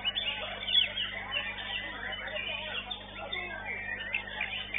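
White-rumped shama (murai batu) singing a fast, varied run of short whistles and chirps, with a loud note about a second in.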